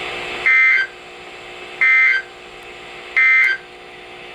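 Three short bursts of Emergency Alert System SAME data tones, the end-of-message code sent after a warning, about 1.3 seconds apart. Each burst is a raspy two-pitch digital chirp, loud against a quiet broadcast hum.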